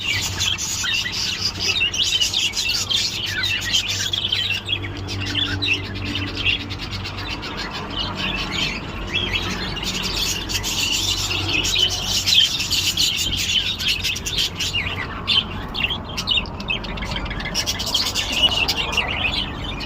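Many birds chirping and calling at once in a dense, continuous chatter of short, high notes, over a steady low hum.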